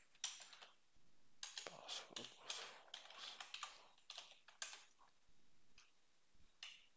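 Computer keyboard typing: faint, irregular keystrokes in uneven runs, thinning out near the end.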